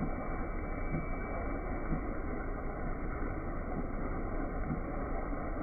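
Suga HSG-PB-4C-1100 automatic folder gluer running at production speed, its belts carrying folded cartons through: a steady mechanical rumble and hiss with soft knocks now and then.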